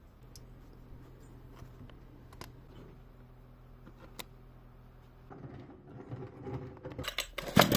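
Scattered light clicks and taps of handling, then uneven rattling for a couple of seconds before a chainsaw engine starts and runs loudly near the end.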